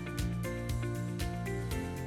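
Background music with a steady beat: held chords and a plucked guitar-like line over regular drum hits.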